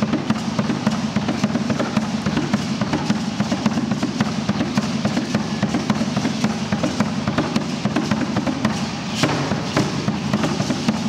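Aztec dance drum beating a fast, steady rhythm, mixed with the dense clicking rattle of the dancers' ankle rattles and stepping feet.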